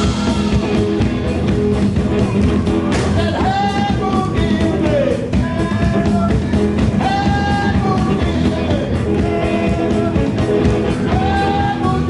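Live rock-and-roll band playing with electric guitar, bass and drums, a voice singing over it.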